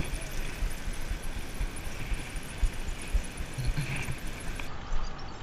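Wind rushing on the microphone and tyre noise from a bicycle rolling along an asphalt path.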